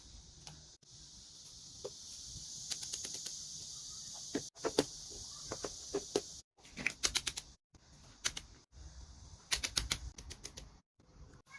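Small objects being handled by hand: quick runs of clicks and taps over a steady high hiss, broken by several sudden cuts.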